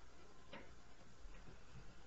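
Faint room tone with one sharp click about half a second in and a softer tick later.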